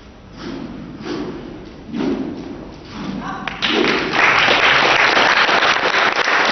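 A few heavy thuds, about a second apart, from a wushu staff routine, with the staff and feet striking the hall floor. About three and a half seconds in, applause breaks out and continues, louder than the thuds.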